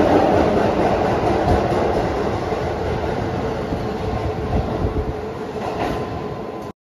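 Keihan electric commuter train running out along an underground platform: steady wheel-and-rail running noise with a faint steady whine, slowly fading as the last cars pass. The sound cuts off abruptly near the end.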